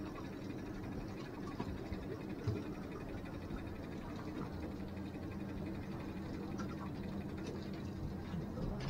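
Boat's outboard motor running steadily at low speed, a low even hum, with a few faint knocks.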